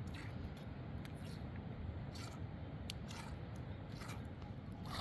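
Hand cutting work: short crisp snips at irregular intervals, over a low steady rumble.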